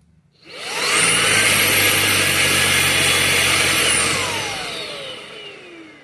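Riccar R65 cordless vacuum cleaner switched on: its motor spins up with a rising whine, runs loud and steady for about three seconds, then winds down with a falling whine that fades away.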